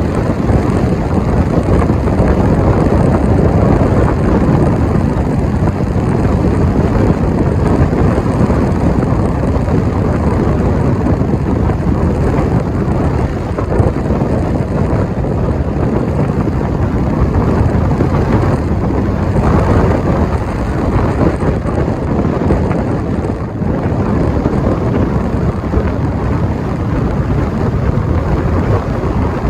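Wind rushing over the microphone together with road noise from a moving car, a steady low rumble throughout.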